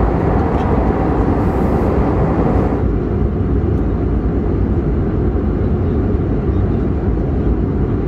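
Steady cabin noise of an Airbus A321neo airliner in flight: an even roar of engines and airflow, heaviest in the low range. About three seconds in, the higher part of the noise drops away, leaving a duller rumble.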